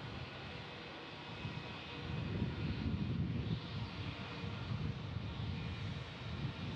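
Bombardier CRJ regional jet's twin rear-mounted turbofans at takeoff thrust as it lifts off and climbs out: a steady jet rumble that swells deeper and louder about two seconds in.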